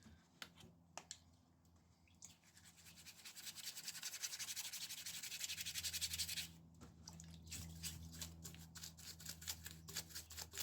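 A brush scrubbing small bicycle parts in quick back-and-forth strokes, fast and steady for a few seconds in the middle, then slower, separate strokes toward the end.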